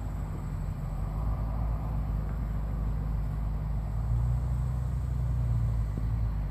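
A steady low rumble with a faint hiss over it, without any distinct knocks or calls.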